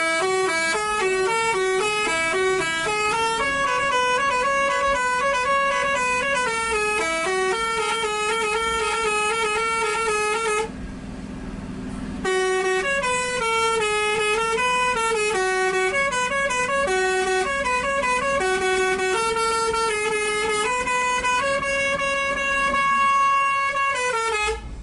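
Basuri 'telolet' musical bus horn playing a melody of quick stepping notes. It stops for about a second and a half near the middle, then plays on and ends on a long held note.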